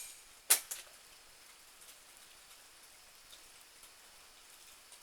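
One sharp crack about half a second in, with a fainter click just after it, from a Benjamin Marauder .22 PCP air pistol and its steel target. Faint rain patters throughout.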